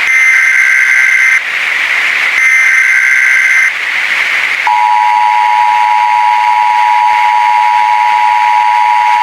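Emergency Alert System header data bursts: two screeching digital warbles about a second apart, the last of a three-part header. About a second after the second one, the steady two-tone EAS attention signal starts and holds, all over a constant hiss of static.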